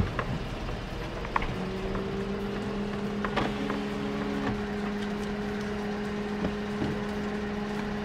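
Inside a stopped Toyota car: a steady low hum sets in about a second and a half in and holds, with a few faint clicks.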